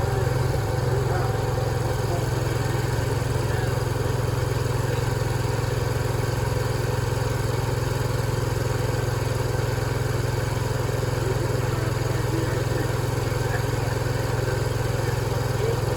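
An engine running at a steady, unchanging speed.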